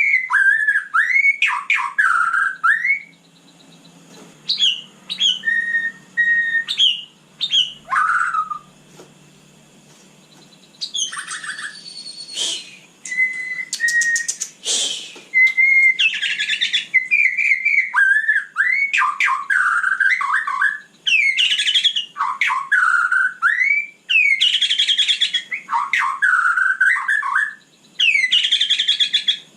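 White-rumped shama (murai batu) singing loudly: a long run of varied whistled phrases with sweeping, falling and rising notes, broken by a burst of rapid clicking rattles about halfway through and two short pauses early on.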